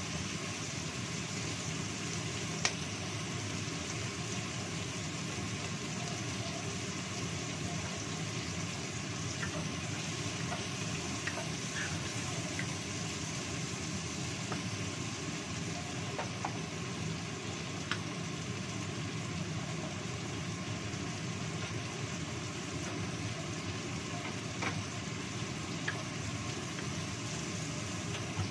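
Kitchen cooker-hood extractor fan running with a steady drone, over shallots, garlic and chilli sizzling in oil in a nonstick wok. A wooden spatula clicks against the pan now and then as the frying is stirred.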